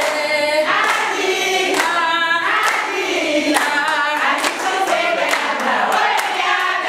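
A group of women singing together, with hand claps sounding among the voices.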